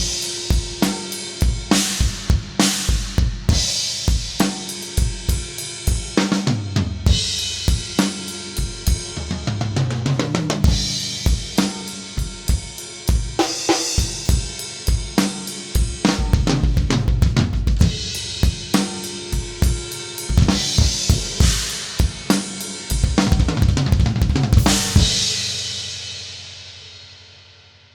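Tama Star Walnut drum kit played as a groove of kick, snare, hi-hat and cymbals, with a fill running down the toms about ten seconds in; the multi-miked recording is heard EQ'd, gated and compressed. It ends on a last cymbal hit that rings out and fades away.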